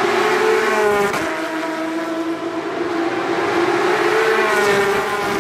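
Race car engines at high revs as cars pass along the track. The engine note rises and then drops sharply as a car goes by, about a second in and again near the end.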